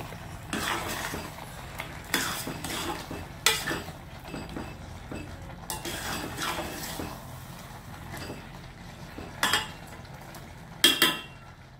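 A metal spoon scraping and knocking against a stainless steel pot while stirring a thick chicken masala. It comes as irregular scrapes and clinks every second or two, with the sharpest knocks near the end.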